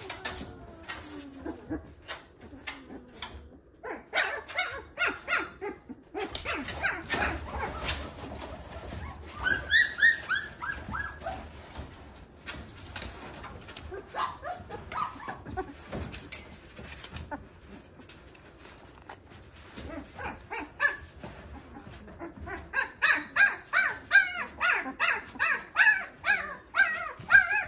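Twelve-day-old wolfdog puppies squealing and whimpering while held in a hand, in runs of short high-pitched cries that come fastest and loudest near the end.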